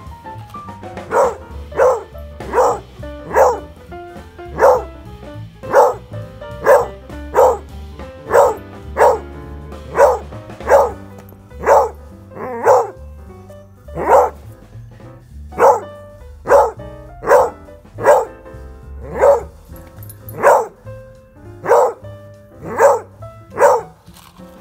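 Beagle puppy barking over and over, about one bark a second, with background music underneath.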